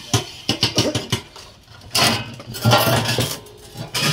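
Sheet-metal cable tray pieces clanking and rattling as they are handled. There is a run of quick sharp clanks in the first second or so, then louder scraping clatter about two and three seconds in.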